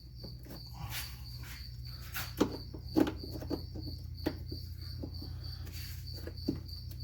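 Crickets chirping in a steady, evenly pulsing high trill, with a few sharp clicks and knocks from hands working wiring clips and trim under the car's dash, the loudest two about two and a half and three seconds in.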